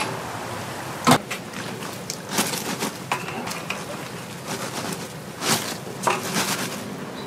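Kitchen work sounds: a few sharp knocks and clatters of utensils and tools against hard surfaces over a steady hiss.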